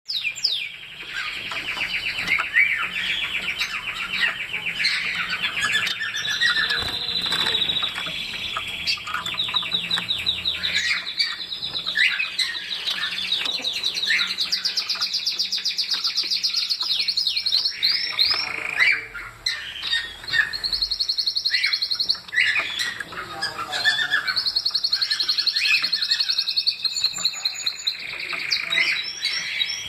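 Society finch (Bengalese finch) chirping and singing: rapid trains of high, twittering notes, nearly continuous.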